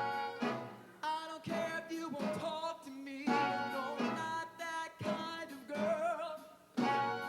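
Show choir singing with instrumental accompaniment, in short phrases that start sharply and die away every second or two.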